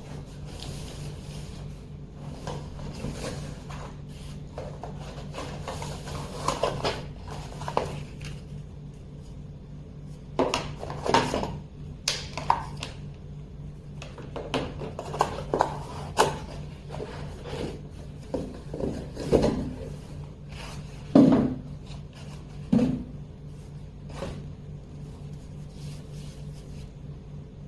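A laptop's cardboard box and packaging being handled and opened by hand: irregular rubbing, scraping and sliding with scattered knocks, over a steady low hum.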